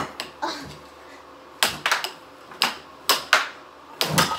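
Air hockey puck clacking off the plastic mallets and the table's side rails in a fast rally: about a dozen sharp knocks at an uneven pace, several in quick pairs.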